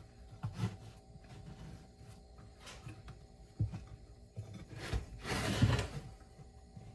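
A rubber tire and inner tube being forced by hand around a wheel rim: scattered knocks and rubbing, with a louder rush of scraping noise about five and a half seconds in. A faint steady hum runs underneath.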